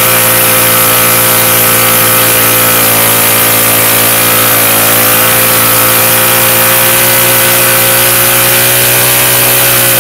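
Mini bike's Predator 212 single-cylinder engine running hard in a stationary burnout, the rear tyre spinning on concrete. The engine note holds nearly steady, dipping slightly about four seconds in and climbing back.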